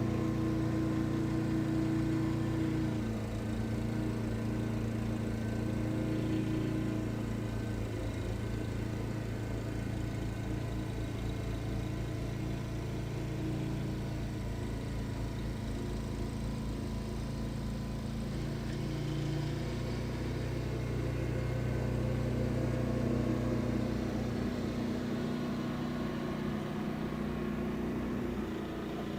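Gasoline snowblower engine running steadily under load while clearing wet, heavy snow; its pitch shifts slightly a few seconds in and again near the end.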